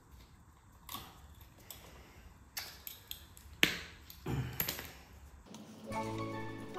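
Metal hand tools clinking and scraping against a rusted metal motorcycle part: a few sharp clicks, the loudest about three and a half seconds in, then a quick cluster of knocks a second later. Background music comes in near the end.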